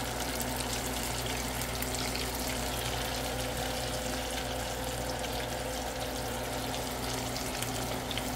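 Battered catfish pieces deep-frying in a saucepan of hot grease. The oil bubbles and sizzles hard with a steady fine crackle, the churn of a batch just dropped in. A steady low hum runs underneath.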